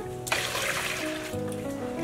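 Water splashing in a steel basin as vegetables are rinsed by hand, loudest for about a second near the start, over background music with held notes.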